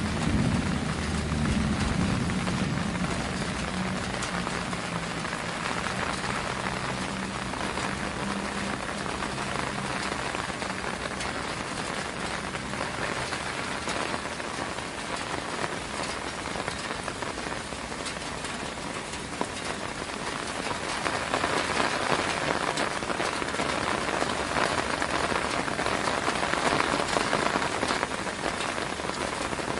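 Steady rain falling on a surface, an even hiss of drops that swells a little about two-thirds of the way through. A low hum underneath fades out over the first ten seconds or so.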